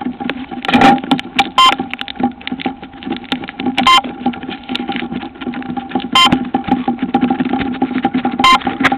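Handling knocks and rustles picked up by a camera inside a model plane's fuselage, over a steady low hum, with a short sharp electronic click about every two seconds.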